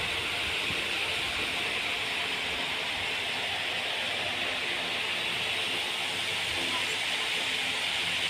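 Steady, unbroken hiss of background noise, brightest in the upper-middle range, with no clear speech or distinct events.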